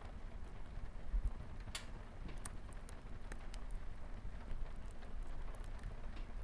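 Wood fire crackling with scattered sharp pops over a steady patter of light rain on a window, with a low rumble underneath.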